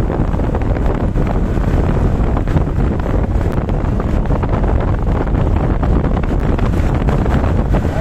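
Wind buffeting the microphone of a moving motorcycle, a loud steady rush with road and engine noise beneath it. It cuts in suddenly at the start.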